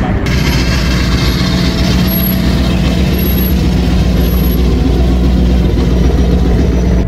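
Hot rod roadster's engine running with a loud, steady low exhaust note as the car drives off.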